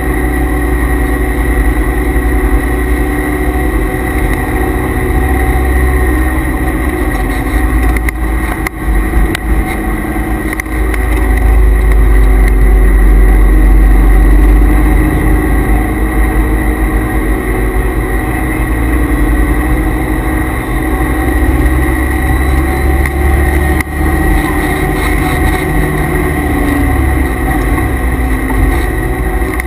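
C5 Corvette Z06's LS6 V8 heard from inside the cabin on track, pulling hard and easing off in turn, loudest about twelve to fifteen seconds in, with brief dips around shifts or lifts. Noise from the car's transmission and differential coolers runs underneath.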